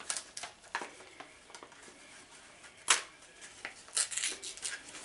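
Hands working open a taped poster package: scattered rustles, scrapes and small snaps of paper and tape, with a sharp snap about three seconds in and a cluster of rustling about four seconds in.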